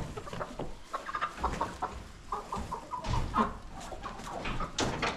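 Chickens clucking softly while they are handled, with a quick run of short clucks about halfway through, rustling, and a sudden noisy scuffle near the end.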